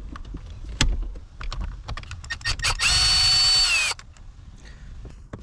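Power drill/driver with a T30 Torx bit backing out an airbag mounting bolt. The motor runs in one steady whine for about a second, starting near the middle, and its pitch drops as it stops. Light clicks and taps of the tool being handled come before and after.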